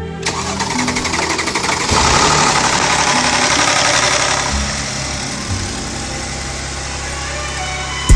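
Mercedes GL450's engine running with a loud, fast rattle that gets louder about two seconds in and eases after about four and a half. The noise comes with camshaft-timing fault codes P001685 and P001177 and is blamed on a failed bank 1 camshaft sprocket.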